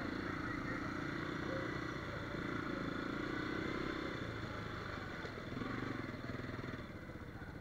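Quad (ATV) engine running under way on a rutted dirt trail, its note swelling and easing a few times with the throttle.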